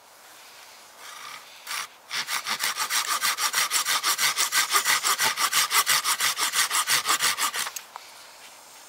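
Hand saw with a coarse-toothed blade cutting a small split piece of wood in rapid, even back-and-forth strokes. A single short stroke comes just before two seconds in, then steady sawing for about five and a half seconds that stops near the end.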